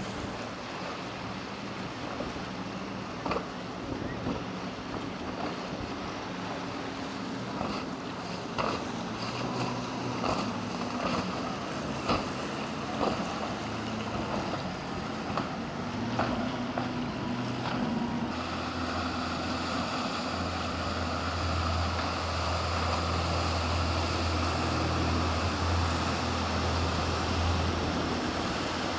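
Motorboat engines running over wind and waves, with scattered sharp knocks. About two-thirds of the way in, the sound switches abruptly to a louder, steady low engine drone.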